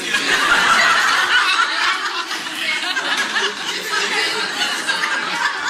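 A roomful of people laughing together, loudest in the first two seconds, with voices chattering through it.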